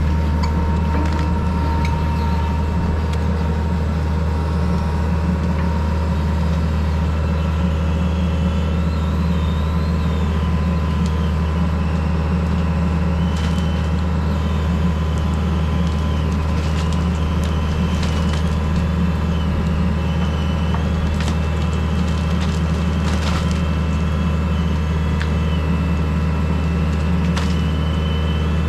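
Excavator's diesel engine running steadily, with scattered brief knocks and scrapes from the machine at work.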